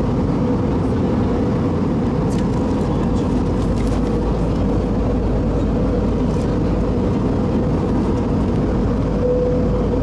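Steady in-cabin drone of an Airbus A320-232 in flight, with its IAE V2500 engines and airflow making a low, even rush and a steady hum. There are a few faint clicks.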